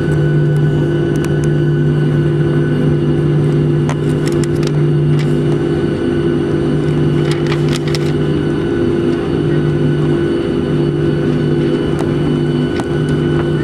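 Boeing 737-700's CFM56 turbofan engines running at taxi power, heard inside the cabin: a steady hum with a thin high whine and an even rumble, and a few faint ticks.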